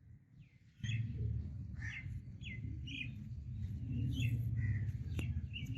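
Small songbirds chirping in short, scattered calls over a steady low rumble that comes in about a second in, with a single sharp click near the end.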